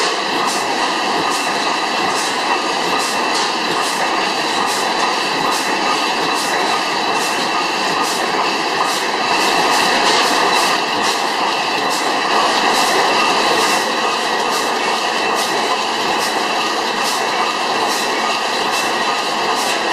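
300 hp Miller Improved stationary gas engine running steadily, a dense mechanical clatter with regular sharp clicks about twice a second.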